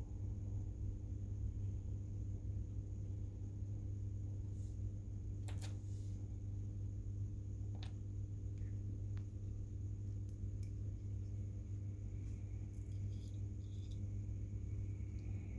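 Steady low hum of room or equipment noise, with a sharp click about five and a half seconds in and a few fainter clicks and ticks later, as the sealed package of ceramic blades is handled and opened.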